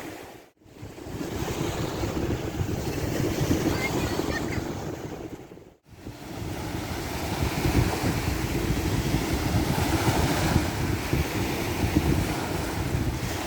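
Sea waves washing onto a sandy beach, a steady rushing surf with wind buffeting the microphone. The sound drops out briefly twice, about half a second in and again near six seconds, then swells back.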